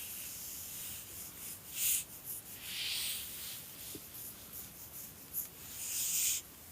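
Soft, hissy breathing of a sleeping dog with light rustling, in irregular short bursts. The longest comes about three seconds in and again near the end.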